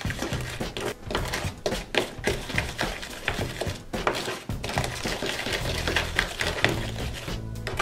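Fingers mixing a thick, wet shower-gel and baking-soda slime in a plastic tub: irregular squishing with quick sticky clicks and crackles.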